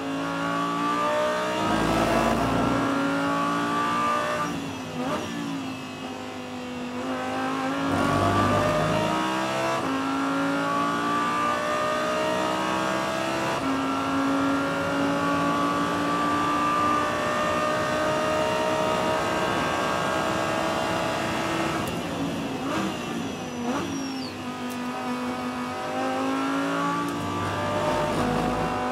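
Audi R8 LMS GT2's V10 racing engine at full throttle, heard from inside the cockpit. Its note climbs steadily in pitch and drops back at each gear change, with shifts about 2, 5 and 8 seconds in and a cluster of changes about 22 to 24 seconds in as the revs fall and pick up again.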